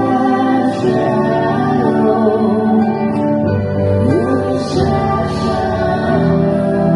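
Live band playing a song: a lead vocal sung over guitar and a steady bass line.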